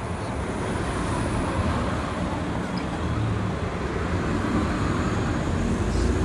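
Steady rumble of road traffic: a continuous noisy wash with a strong low hum and no distinct events.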